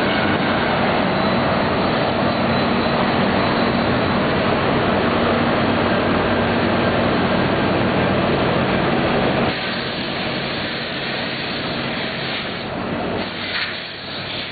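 Weeke BHX500 CNC machining centre running, a steady loud machine noise with a constant hum. It drops noticeably in level about two-thirds of the way through and begins to fade near the end.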